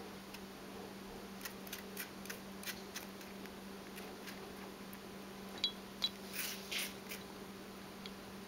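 Netherland dwarf rabbit biting and chewing a whole apple: a series of small crisp crunches, with a louder cluster of crunches about six to seven seconds in. A steady low hum runs underneath.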